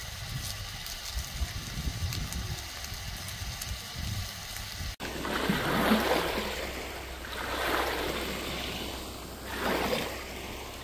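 Small waves washing up on a sandy shore, three soft surges about two seconds apart in the second half. Before that, a low rumbling noise.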